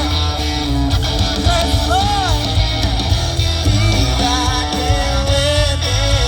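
Country song playing, led by guitars over a bass line.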